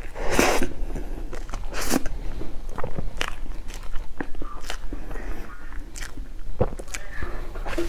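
Food being bitten and chewed, with irregular crunches and mouth smacks.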